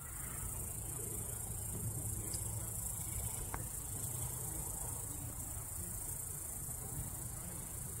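Steady, high-pitched chorus of insects over a low background rumble.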